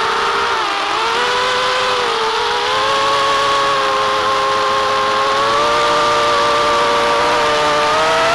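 Brushless motors of a racing quadcopter (Titan 2204 2300 kV) whining in flight, several close tones moving together. The pitch dips briefly about a second in, rises again and then holds steady.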